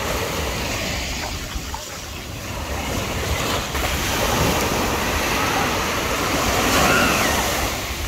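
Small sea waves breaking and washing up on the beach, with wind buffeting the microphone as a steady low rumble. The surf grows louder through the middle and is loudest about seven seconds in.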